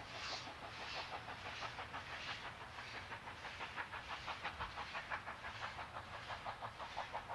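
NSWGR 36 class steam locomotive 3642 working a passenger train, its exhaust giving a steady rhythmic chuff that grows sharper and more regular about three seconds in, at roughly four beats a second.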